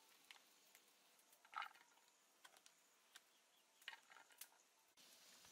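Near silence with a few faint, scattered clicks and one short rustle about a second and a half in: fingers picking the stems off small red chilies in a woven bamboo basket and handling them onto a ceramic plate.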